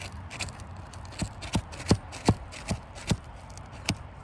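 Footsteps on a shingled roof: about seven hollow knocks at a walking pace, starting about a second in.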